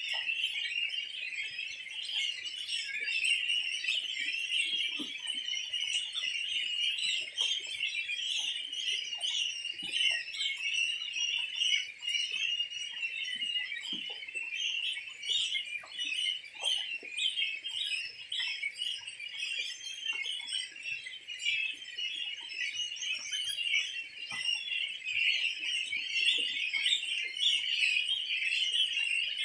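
A large flock of young goslings peeping without pause, many short high calls overlapping into a dense chorus.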